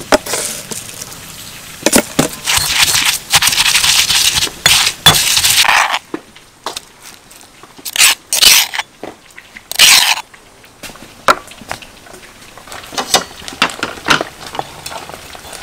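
A pestle pounding and grinding young tamarind with sugar in a mortar: gritty crunching and scraping strokes for about six seconds. After that come a few short separate scrapes and light knocks.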